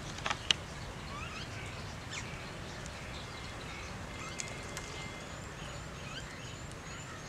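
Small birds chirping over steady outdoor background noise, with many short rising chirps repeating throughout and a run of higher, quicker chirps in the second half. A sharp click about half a second in.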